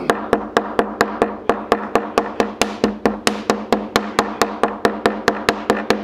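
Small textured face of a stainless steel chokka hammer lightly tapping a strip of squid on a plastic cutting board, about four quick, even taps a second: the flesh is being softened for bait.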